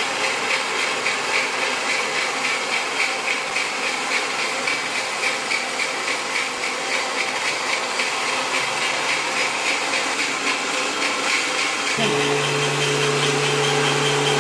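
Homemade mixer-grinder slicing machine running and slicing a batch of onions fed from its hopper, a steady mechanical rattle pulsing about twice a second. About twelve seconds in, a steady hum joins it.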